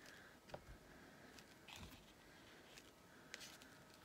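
Near silence: faint handling sounds as hands press a gel printing plate down onto paper, with a few light ticks and a couple of soft thumps.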